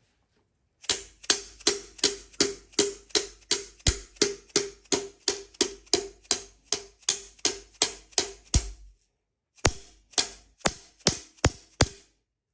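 Hammer blows driving a piston and connecting rod out of a Chevy 350 V8's cylinder: a steady run of about twenty sharp knocks, a short pause, then about seven more. The piston is stuck and will not come free.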